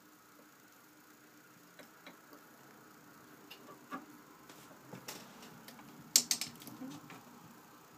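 A cat's paws and claws tapping and scraping at a plastic sewing machine and the table it sits on: scattered light clicks, with a louder cluster of clicks about six seconds in. The sewing machine's motor is not running.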